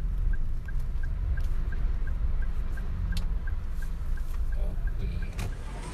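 Steady low rumble of traffic from cars at a curb, with a small high beep repeating about three times a second throughout and a sharp click near the end.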